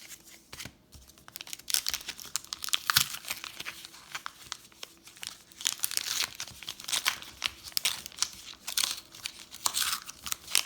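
Foil trading-card booster pack wrapper crinkling and being torn open, a dense run of crackles and rustles that starts about a second and a half in.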